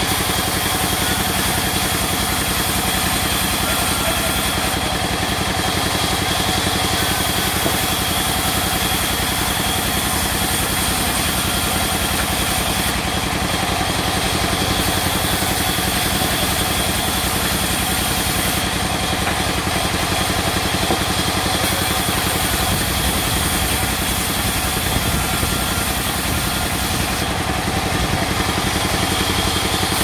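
Large sawmill band saw running steadily as a long wooden plank is fed through the cut. A fast, even mechanical throb from its drive has a thin, steady high whine over it.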